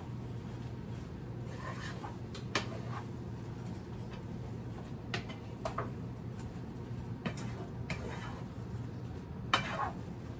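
Wooden spatula scraping and knocking against a skillet as a ground-meat mixture is stirred: about six short, irregular strokes, the loudest near the end, over a steady low hum.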